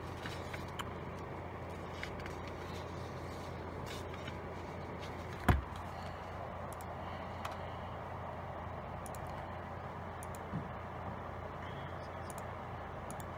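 Steady low hum of office room noise, with a few faint clicks and a single sharp knock about five and a half seconds in.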